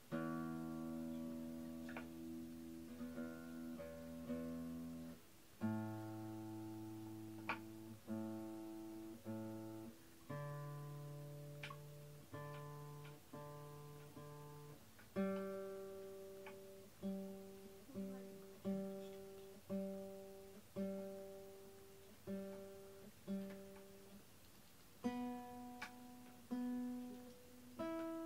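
Quiet, slow acoustic guitar music: chords struck and left to ring out and fade. The first few are held for several seconds, then they come about once a second.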